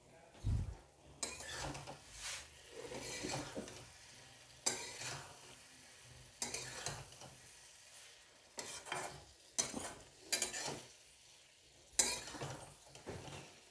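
A metal spatula stirring and scraping a thick potato, cauliflower and pea curry around a metal kadhai in repeated separate strokes, with the food sizzling on the heat between them. A dull low thump comes about half a second in.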